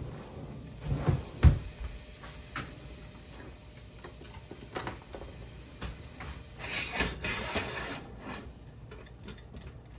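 Kitchen handling sounds: two dull thumps about a second in, then scattered clicks and a short clatter of a wire whisk knocking against a stainless steel saucepan around seven seconds in.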